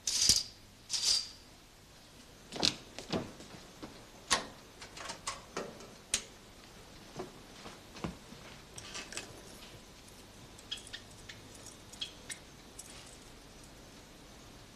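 Scattered small clicks, knocks and light rattles, as of objects being handled, opening with two brief rustling swishes in the first second or so.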